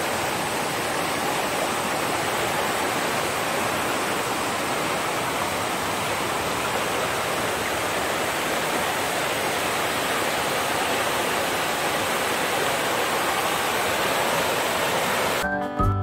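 Waterfall and its rocky stream rushing steadily at close range. Music begins just before the end.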